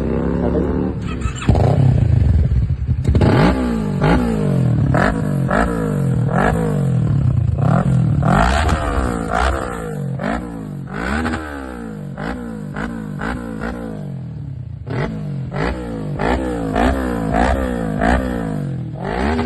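Kawasaki Ninja 650's parallel-twin engine being revved in a run of repeated quick throttle blips, the pitch rising and falling with each. There is a brief lull about two-thirds through before the blips resume.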